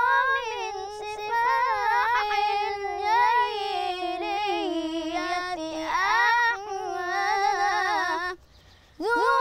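A boy's solo voice chanting Islamic religious praise (inshad), unaccompanied, in long ornamented melismatic runs. He breaks off for a breath about eight and a half seconds in, then comes back in.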